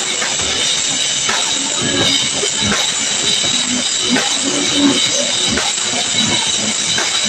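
Live band playing a song, with drum kit hits running through a loud, steady mix.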